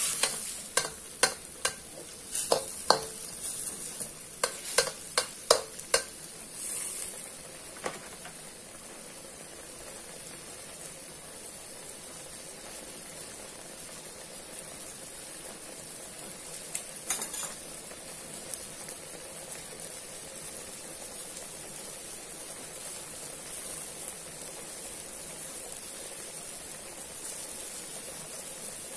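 A metal spatula scrapes and knocks against a wok in quick strokes for the first several seconds, with two more knocks about 17 seconds in. Under the strokes, chopped leftover roast duck and chicken sizzle steadily as they simmer in sauce.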